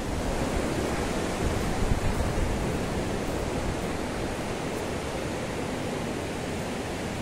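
Mountain river rushing over rocks: a steady, even roar of water, slightly louder in the first few seconds.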